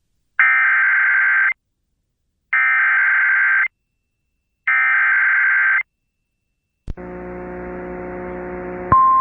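Emergency Alert System header: three identical bursts of buzzy digital data tones, each about a second long and a second apart. A click and a low buzzing hum with hiss follow, and a single steady, piercing attention tone starts near the end.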